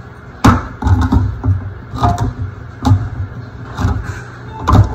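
Hand-held manual can opener being cranked around the rim of a metal can: a series of irregular clicks and clunks as the handle turns and the cutting wheel bites through the lid.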